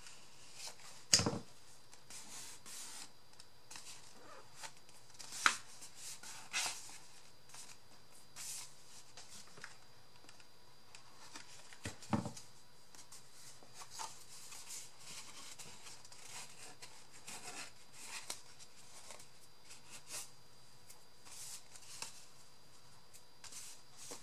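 Hands handling paper and thin cardboard: irregular rustling and light clicks, with a sharp knock on the table about a second in and another about halfway through.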